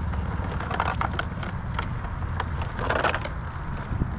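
Rustling and knocking of a cast net and plastic bait bucket being handled on a kayak, in scattered short bursts that are loudest about a second in and again about three seconds in, over a steady low rumble.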